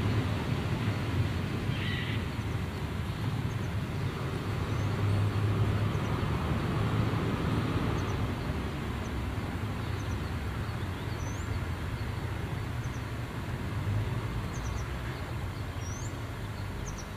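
FS D.143 diesel shunting locomotive's engine running with a steady low rumble, gradually getting quieter as it moves slowly away. There is a short high squeal about two seconds in, and small birds chirp faintly in the background.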